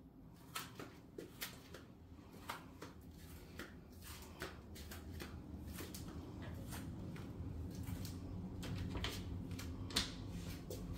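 Light footsteps clicking on a tile floor at walking pace, with a sharper click about ten seconds in and a low rumble that grows louder in the second half.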